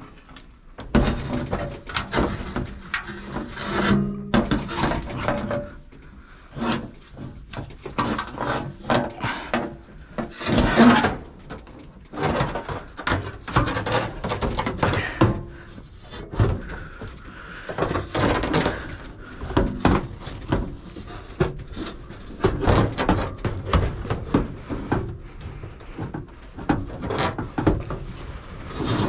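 Irregular scraping, rubbing and knocking of a sheet-metal blower housing, with its new fan motor, being handled and worked into a tight fit in a fan coil unit cabinet.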